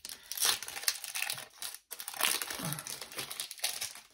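Pokémon TCG booster pack's foil wrapper crinkling and being torn open, as a run of short, irregular crackly rustles.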